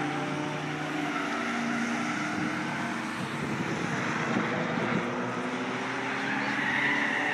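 Several cars driving past one after another, their engine notes overlapping and shifting in pitch as each one goes by. A new, higher engine note comes in near the end.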